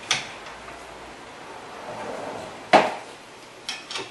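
Metal clinks and clanks of a steel bar levering a car's lower control arm to seat a new ball joint stud. There is a click at the start, one loud clank about two and a half seconds in, and two lighter clicks near the end.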